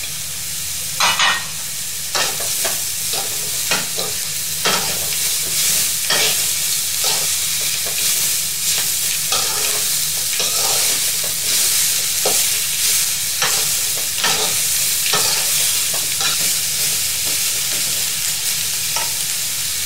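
Vegetables sizzling in a hot pan as they are stir-fried, with a metal spatula scraping and knocking against the pan at an irregular pace, about once or twice a second.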